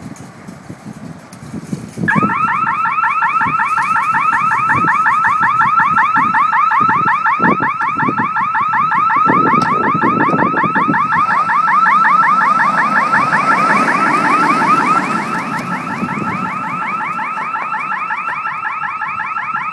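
Exterior security alarm siren of a fence-intrusion detection system sets in suddenly about two seconds in, a loud, fast-repeating warble of rising sweeps that goes on steadily; it is set off by the fence being tampered with. Low knocks and rattles come before it and now and then under it.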